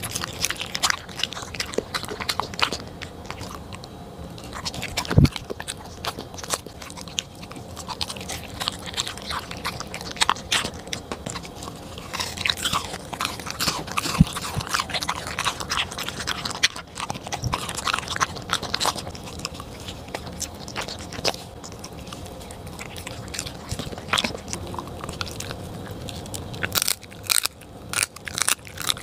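Pembroke Welsh corgi eating from a plate, with wet chewing and mouth clicks as it works through raw meat puree and carrots. Near the end come sharp, crisp crunches as it bites a crispy dried shark-meat strip held out by hand.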